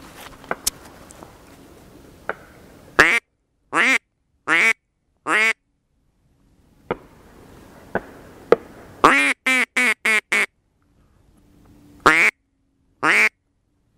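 Duck quacking in the mallard manner: four loud, spaced quacks, then a quicker run of five, then two more near the end. A few sharp clicks fall between the calls.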